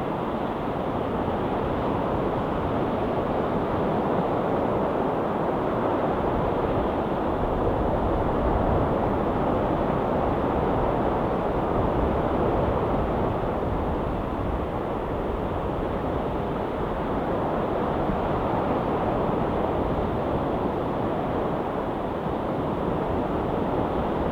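Sea waves washing steadily onto a rocky shore, an even rushing wash with gentle swells and no breaks.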